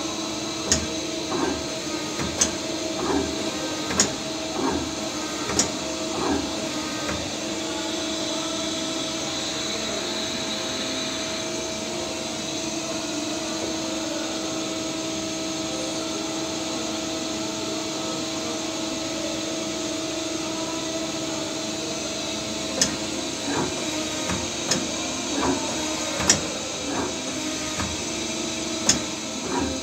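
Mazak Quick Turn Nexus 350M CNC lathe running: a steady machine hum with a low two-tone drone, broken by scattered sharp clicks and knocks over the first several seconds and again over the last seven or so.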